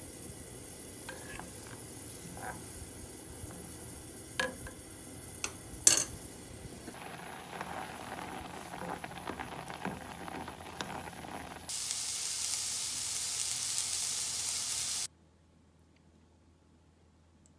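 Wooden spoon stirring scorched rice (nurungji) in water in a pot, with a few sharp knocks of the spoon against the pot in the first six seconds. From about seven seconds the pot bubbles and crackles at the boil, then a loud steady hiss runs for about three seconds and cuts off suddenly to near silence.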